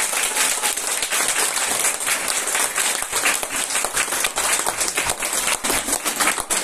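A small audience applauding, many hands clapping steadily.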